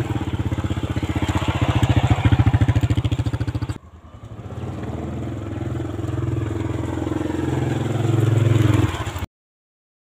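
Small step-through motorbike engine running as the bike pulls away, its firing beats evenly spaced. About four seconds in the sound dips briefly, then the engine is heard again as the bike rides along; it cuts off abruptly near the end.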